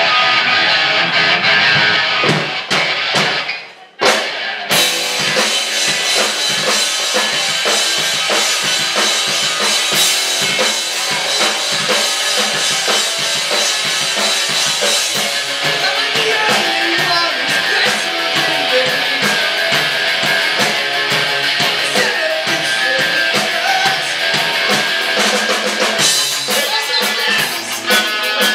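Live rock band playing with electric guitar, electric bass and drum kit. A few accented hits and a brief stop about four seconds in, then the full band comes back in and drives on with steady drumming.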